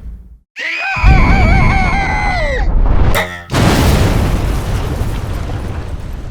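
Cartoon sound effects: a loud wavering, warbling cry over a deep rumble for about two seconds, then a brief rapid rattle and a loud explosion-like blast that slowly dies away.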